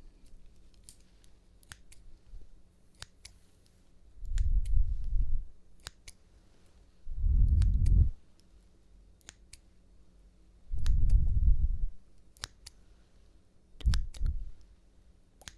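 Scissors snipped close to a sensitive ASMR microphone: sharp metallic clicks scattered irregularly throughout. Four dull, low rumbles, each about a second long, are the loudest sounds.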